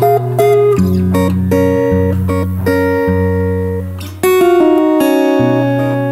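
Acoustic guitar played live, chords and picked notes ringing and changing about once a second.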